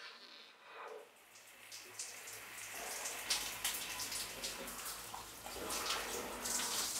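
Shower water running and spattering onto a person and a tiled stall, getting louder over the first few seconds and then running steadily.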